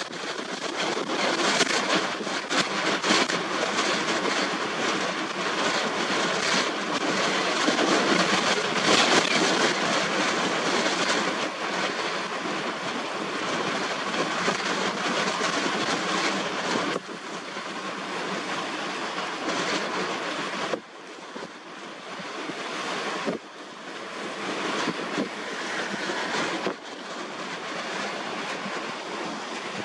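Strong gusty wind over a rough, choppy sea, a dense rushing noise that swells and drops unevenly in gusts.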